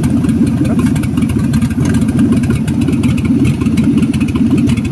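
Ford 302 V8 of a 1962 Comet idling steadily, heard close up in the engine bay.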